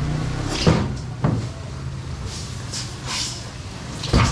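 Boxes being handled and set down on a truck's flatbed: three sharp knocks, two close together early on and the loudest near the end, with scraping and scuffing sounds between them.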